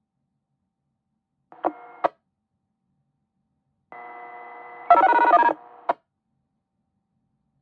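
Two-way radio transmissions received over the air. The first is a brief key-up about a second and a half in, with a click at its start and end. The second, about four seconds in, carries a quick half-second string of DTMF control tones and ends in a squelch click.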